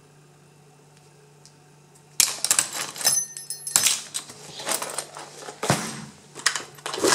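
Metal Euro cylinder locks clattering and clinking against each other as a hand rummages through a cardboard box full of them. The clatter starts about two seconds in after a quiet moment, with a brief metallic ringing around three seconds in.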